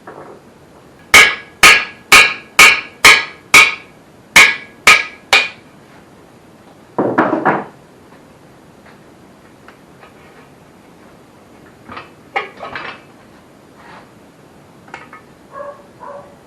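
Hammer blows driving out the core plugs of a Holden 173 red six-cylinder engine block: nine sharp, ringing metal strikes, about two a second. Then a short scraping rattle, and a few lighter clinks near the end.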